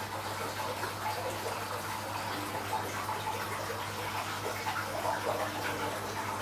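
Aquarium water circulation: the pump and filter return keep water bubbling and trickling, over a steady low hum from the pump.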